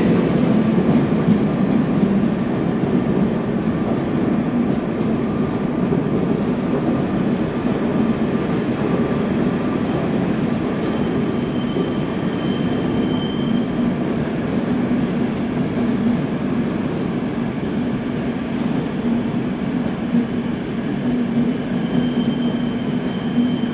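SBB RABe 511 Stadler KISS double-deck electric train running slowly through the station, a steady rumble with a low hum. A thin high squeal comes in briefly about halfway through and again near the end.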